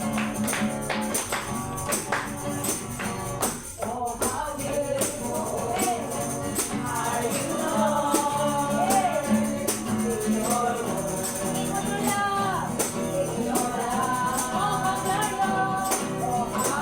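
Worship song: voices singing a melody over music, with a tambourine shaken and struck in a steady beat.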